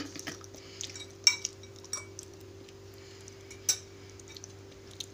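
Cutlery and dishes clinking in a few separate sharp knocks, the loudest about a second in and near four seconds in, over a steady low hum.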